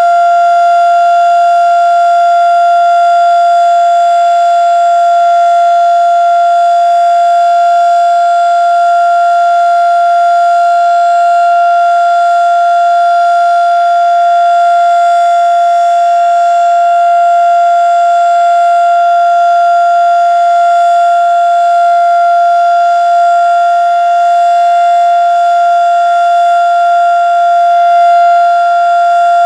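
Federal Signal Model 3 tornado siren sounding its steady Alert signal on a test: one loud, constant tone with a ring of overtones, holding its pitch without rising or falling.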